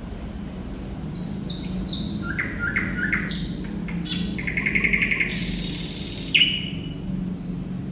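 Thrush nightingale singing a varied phrase: a few short high whistles, three quick rising notes, a rapid rattling trill, then a harsh buzzy note and a closing whistle. A steady low hum runs underneath.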